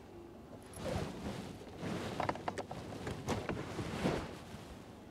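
Hands rummaging under a pickup's dashboard among aftermarket alarm wiring and fuses: rustling with several small, sharp plastic clicks, in three short spells.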